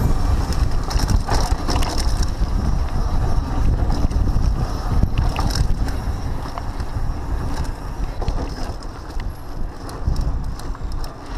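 Mountain bike riding fast down a dirt trail: tyres running over the ground and the bike rattling and clicking over bumps, with wind buffeting the microphone.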